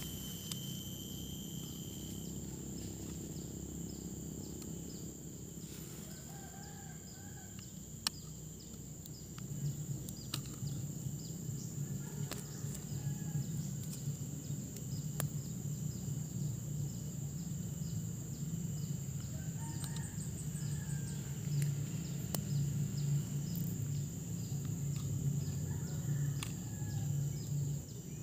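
Chickens clucking in the background over a steady high-pitched whine, with a few sharp clicks.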